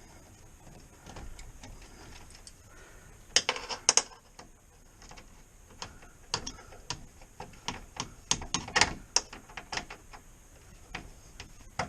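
Screwdriver working the screw of a breaker panel's neutral lug to clamp the white neutral wire: irregular sharp metal clicks and taps, bunched together about three seconds in and again through the middle of the stretch.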